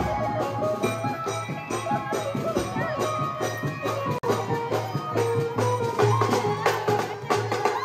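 Folk-style music with a steady percussion beat under a melody.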